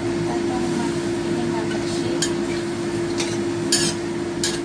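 A metal spatula stirring curry in a steel wok, with four short scrapes against the pan in the second half. A steady hum from a kitchen fan or appliance runs underneath.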